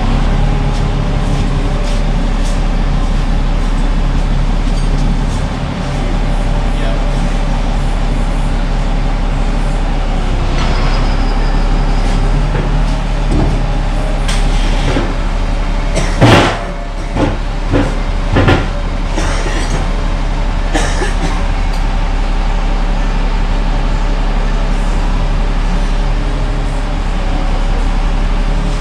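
An engine running steadily. A handful of sharp knocks and clanks come a little past halfway, the first one the loudest.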